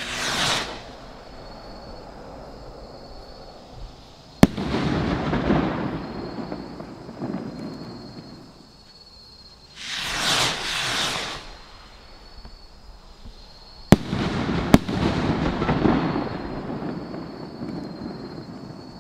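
Funke Bomben Raketen firework rockets heard from a distance: a rocket whooshes up, and a few seconds later bursts with a sharp bang and a long rumbling echo. A second rocket whooshes up about ten seconds in and bursts with two sharp bangs about a second apart, followed by rumbling echoes.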